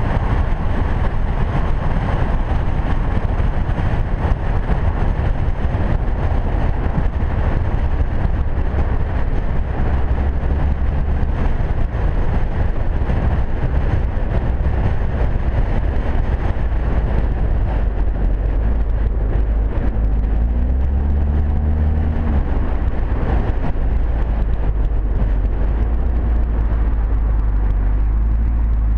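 Audi TT-S's turbocharged four-cylinder engine and exhaust, driving at speed, with a steady low rumble under wind and tyre noise on an outside-mounted camera. The rushing noise eases in the second half as the car slows, and a brief wavering engine note comes about two-thirds of the way in.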